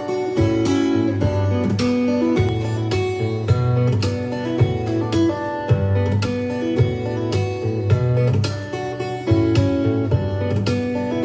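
Acoustic guitar music, strummed and plucked chords at a steady rhythm, played back through a speaker in a sound test.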